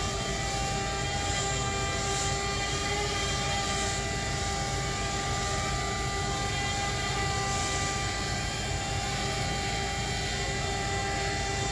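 A steady droning hum: an even wash of noise with several held tones over it, unchanging in level and pitch.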